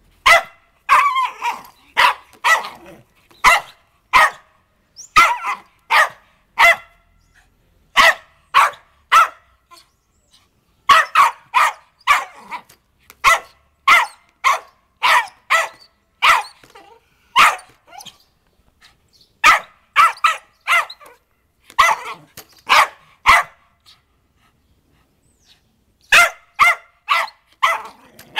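Small terrier puppy barking sharply and repeatedly at a string trimmer head, the barks coming in quick runs of one to two a second with short pauses between them.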